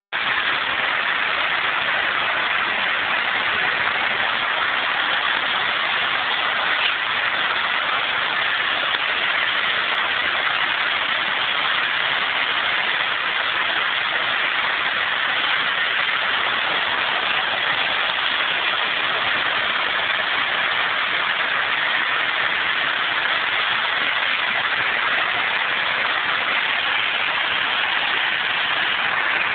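Steady, even hiss of surf: small waves breaking and washing up onto a sandy beach.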